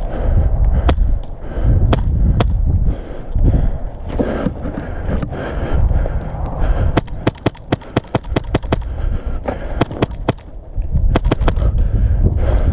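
Airsoft guns firing: scattered sharp pops, then a fast string of about five shots a second from about seven to ten seconds in, and more pops near the end. Heavy low thumping and rustling of a player moving runs under the shots.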